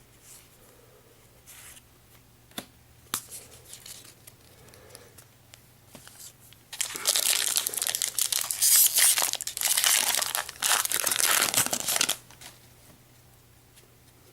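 Foil booster pack wrapper being torn open and crinkled. A few light taps and rustles come first, then about five seconds of loud, continuous crinkling and tearing that stops abruptly.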